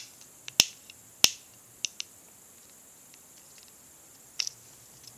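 Sharp metallic clicks of a Victorinox Cybertool 34 Swiss Army knife being handled as its reamer is opened. Three loud snaps come in the first second and a half, then a few lighter clicks, with a close pair about four and a half seconds in.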